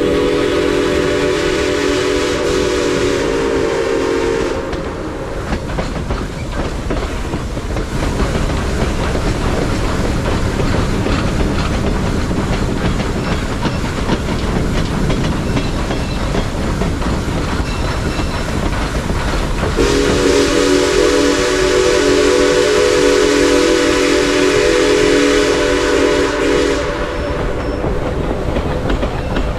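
Western Maryland Scenic Railroad 1309's steam whistle blowing a steady multi-note chord: one blast of about four seconds, a longer one of about seven seconds later on, and a third starting at the very end. Between the blasts the train's rumble and rail clatter carry on.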